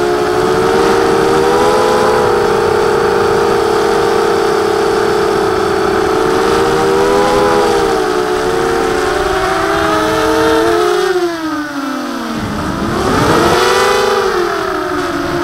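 Mini-H quadcopter's brushless motors spinning HQ 5x4 propellers in flight, a steady multi-pitched whine that wavers with the throttle. About eleven seconds in the pitch falls sharply as the throttle is cut, then climbs back to a higher whine around thirteen seconds as power is added again.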